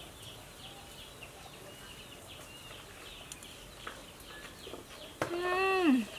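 Chickens clucking faintly in the background. About five seconds in, a woman hums one loud, drawn-out 'mmm' while chewing a mouthful of food, its pitch dropping at the end.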